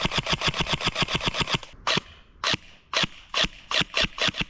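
Scorpion Evo airsoft electric gun firing rapid semi-automatic shots, about seven a second. There is a short break a little past halfway, with two single shots, before the fast shooting starts again.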